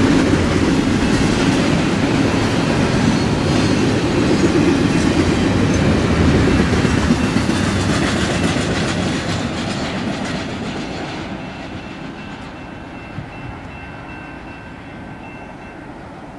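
Double-stack container freight train rolling past, a steady clatter of its wheels on the rails, fading over the last several seconds as the train moves away.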